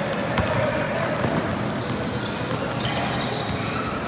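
Basketball game sounds in a gym: a ball bouncing on the hardwood and short high sneaker squeaks over a steady murmur of crowd and players, echoing in the hall.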